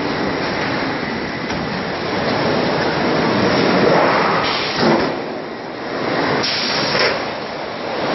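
Steel sheet straightening and cut-to-length line running: steady machine noise, with two short hisses about halfway through and near the end.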